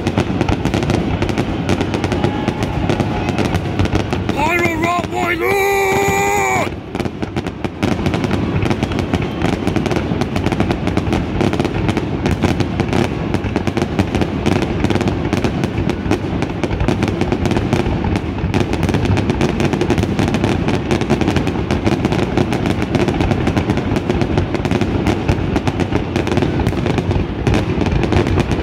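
Grucci aerial fireworks in a finale barrage: shells bursting one on top of another in a continuous, dense run of bangs and crackle.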